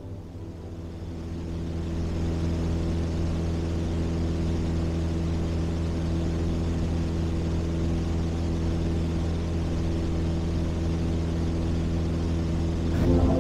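Cessna 172's piston engine and propeller droning steadily as heard inside the cabin in cruise, fading up over the first two seconds. A brief click near the end.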